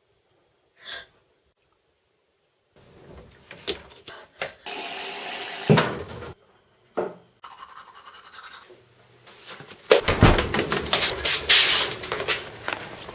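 A string of household noises: a few seconds of rushing water with knocks and clinks around it, then many quick, hard footfalls hurrying down a staircase.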